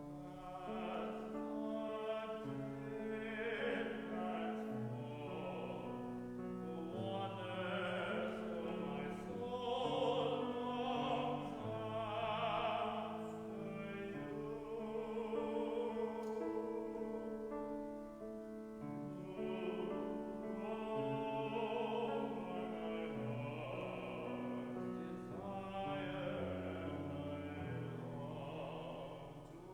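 Singing in slow, held notes with piano accompaniment, in the manner of a hymn or sacred solo in a church service.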